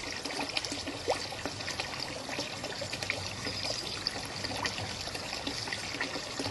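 Water trickling and splashing steadily into a small garden pond, a pump-fed flow, with many small drips and splashes over it.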